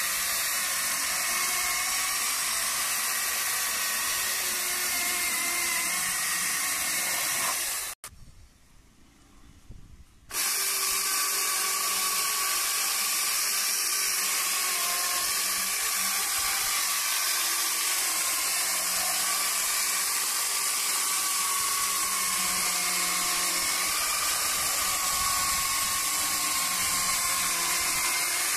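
Two-man Sharpex electric chainsaw cutting through a log: a steady motor-and-chain whine with a hissing high end, its pitch wavering slightly under load. The sound drops out for about two seconds roughly a third of the way in, then resumes.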